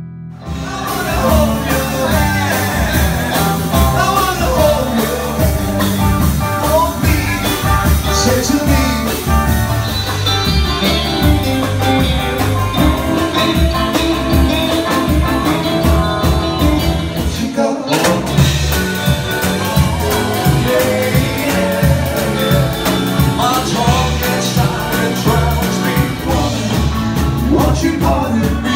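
Rock and roll band playing: electric guitars, bass and drums with a steady beat and a male singing voice. The music drops out for an instant about two-thirds of the way in and picks straight up again.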